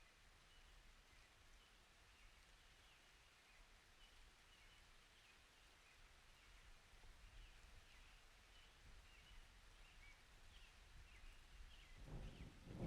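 Faint birds chirping over a low background rumble. Near the end a low rumble of thunder begins to build.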